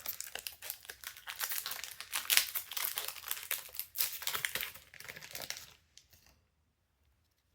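Plastic trading card booster pack wrapper crinkling and crackling as it is handled and torn open, stopping about six seconds in.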